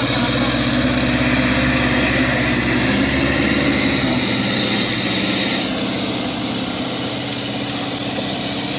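A motor engine running steadily, its sound thinning and dropping slightly about five and a half seconds in.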